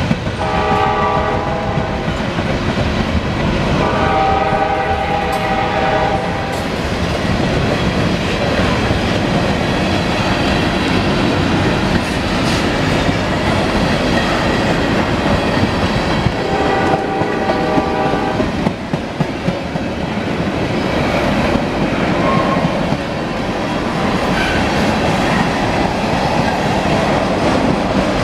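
Freight train of tank cars rolling past, with a steady rumble and the clickety-clack of wheels over the rail joints. A train horn sounds three times: briefly at the start, again for a couple of seconds about four seconds in, and once more about sixteen seconds in.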